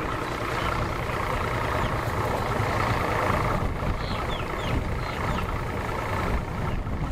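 Mercury OptiMax 250 outboard, a two-stroke V6, running steadily at idle in gear on a bass boat.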